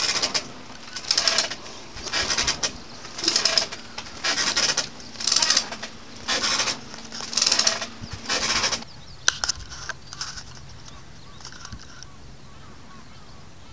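A grey mullet thrashing in a mesh landing net on a wooden raft deck, about nine rustling, slapping flurries roughly a second apart. These stop about nine seconds in, followed by a few sharp clicks.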